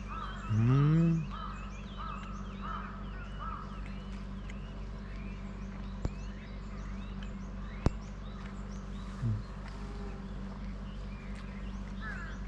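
Small birds chirping and calling repeatedly over a steady low hum. About half a second in, a loud rising closed-mouth "mmm" from a man chewing food, and a shorter one near nine seconds; a few sharp clicks.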